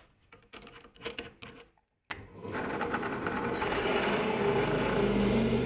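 A few clicks and knocks of a steel bolt and wooden board being handled into place, then a drill press starts with a click about two seconds in and its bit cuts steadily into the steel hex head of the bolt.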